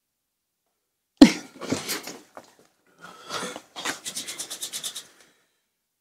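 A sudden knock about a second in, then rustling, then hands rubbed briskly together near the end, about eight strokes a second.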